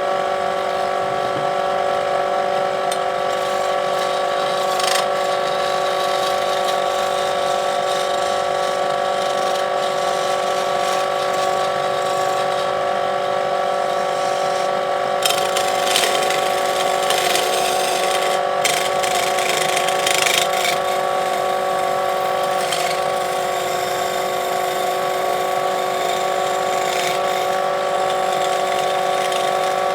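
Wood lathe running with a steady motor whine; about halfway through, several seconds of harsher scraping as a turning tool cuts the spinning wood.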